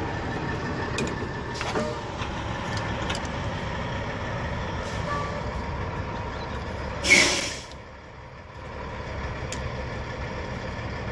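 Idling heavy truck engine, running steadily, with a few faint clicks early on and a short loud hiss of air about seven seconds in.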